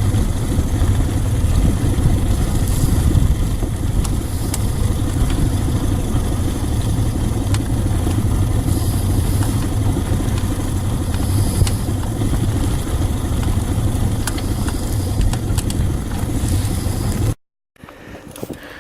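1969 Johnson 55 hp outboard motor running steadily as the boat is under way, heavy in the low end. It cuts off abruptly near the end, leaving only faint ambient noise.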